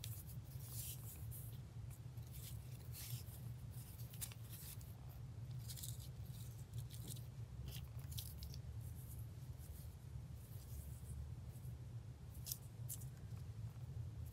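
Paper and lace trim being handled and arranged on a cutting mat: light, scattered rustles and small taps, over a steady low hum.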